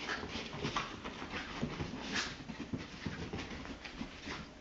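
A basenji puppy and a Shih Tzu–Yorkie mix play-fighting: quick breathy huffs and scuffling, several short irregular bursts a second.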